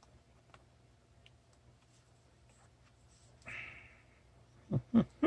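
Tape being wound around a micro drone by hand: faint ticks and handling rustles, a short rasp about three and a half seconds in, then a quick run of short, sharp squeaky sounds near the end.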